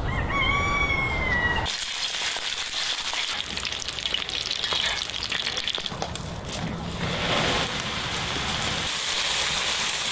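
Food sizzling and crackling in a cast-iron pan over a wood fire, a steady hissing crackle full of small pops. Before it, for about the first second and a half, a short whistle-like tone dips slightly in pitch.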